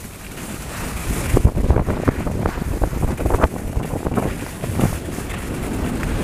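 Wind rushing over the camera microphone on a fast ski descent, a heavy gusting rumble, with irregular scrapes and chatter of skis on packed snow.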